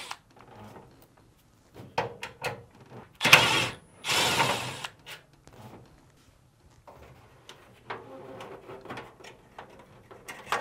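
Screws and metal brackets being worked loose from a dryer's drum-and-chassis assembly. Scattered sharp clicks are followed by two louder scraping bursts about three and four seconds in, then a faint steady mechanical whir near the end.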